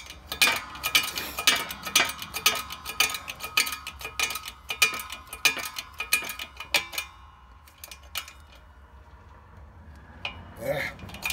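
Rapid metallic clicking and clinking, about three strokes a second, from working the hand pump of a hydraulic shop press as it pushes a new wrist-pin bushing into a connecting rod's small end. The clicking stops about seven seconds in.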